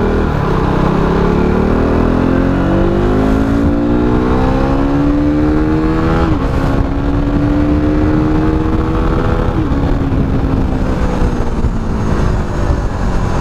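KTM RC 390's 373 cc single-cylinder engine accelerating hard through the gears. The revs climb steadily, drop sharply at an upshift about six seconds in, climb again, then drop at another upshift near ten seconds and settle.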